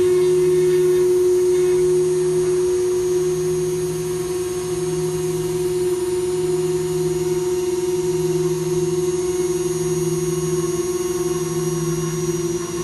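CNC router running a carving job in wood: a steady high spindle whine, under which a lower hum swells and fades about every two seconds.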